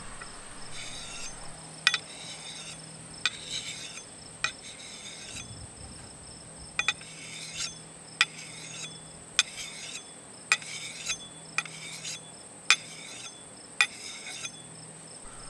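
Scythe stone scraping along a steel axe bevel in file-like honing strokes, about a dozen of them at roughly one a second, each short scrape ending in a sharp click.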